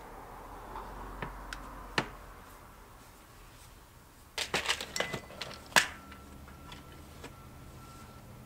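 A screwdriver and small metal parts of a Bing moped carburetor clicking and clinking as it is taken apart on a workbench mat: a few separate clicks in the first two seconds, then a quick cluster of sharper clicks about halfway through.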